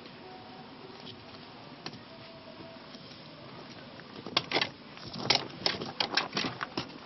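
Footsteps on a rocky, gravelly trail: after a few seconds of faint hiss, shoes crunch and scrape on stones and grit, getting louder as the walker comes close, from about four seconds in.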